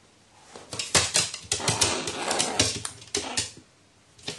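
A pet crow pecking and scratching at a wooden floor and the foot of a wall, making a dense run of quick sharp taps and scrapes for about three seconds. A fresh burst of taps starts right at the end.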